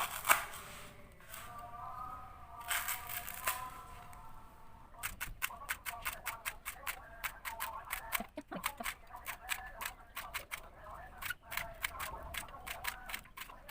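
Knife chopping spices, such as chilies, ginger, turmeric and shallots, roughly on a cutting board. From about five seconds in it strikes the board in quick, even strokes, several a second.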